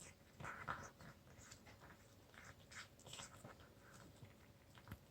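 A cat chewing and licking at a piece of meat: faint, irregular small clicks and scratchy smacking sounds.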